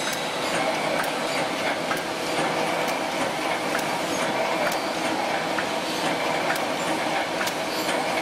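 Automatic welded wire mesh machine running: a steady mechanical clatter with a sharp click about once a second.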